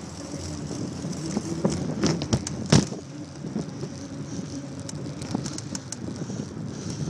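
Bicycle rolling over pavement with a steady tyre and wind noise, its frame rattling over the rough surface. A cluster of clicks and knocks comes about two seconds in, with one sharp knock near the three-second mark.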